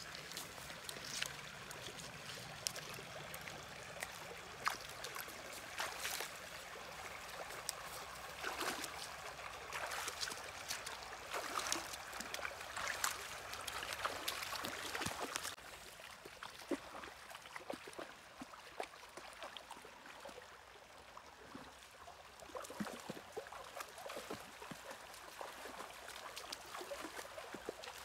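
Shallow river running over stones, with the splashing steps of wading through the shallows, busiest in the first half and quieter from about fifteen seconds in.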